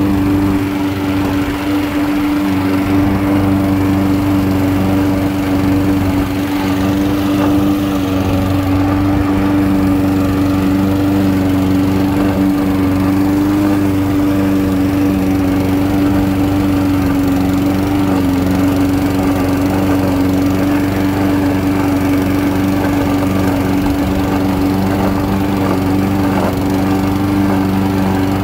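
PLOW PH-GC530 self-propelled lawn mower's Yamaha vertical-shaft engine running at a steady, unchanging speed while mowing grass.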